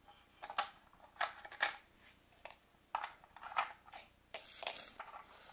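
LEGO plastic parts clicking and clacking as small flower crates are set into a trailer and its side wall is closed. The clicks come irregularly, with a denser clatter a little over four seconds in.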